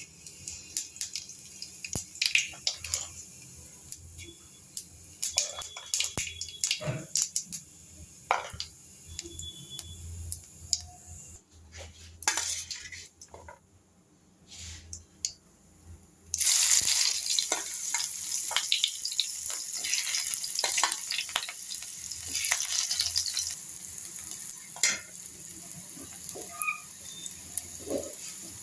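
Metal utensils clinking and tapping against pots and bowls, then about halfway through a sudden loud sizzle as food goes into hot oil in a pan. The frying sizzle carries on with a spoon stirring and clinking in the pan.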